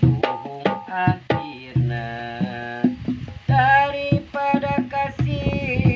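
Hand drumming on a homemade Sundanese kendang built from plastic pipes: sharp slaps mixed with low booming bass strokes. From about three and a half seconds in, a man sings a Sundanese song over the drumming.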